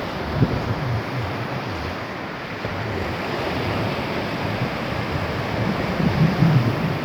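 Wind buffeting the microphone over a steady rush of water, the gusts growing stronger near the end.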